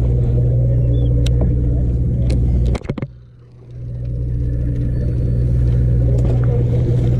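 Sportfishing boat's engines running with a steady low drone and a few light clicks. The sound drops out suddenly about three seconds in and fades back up within a second.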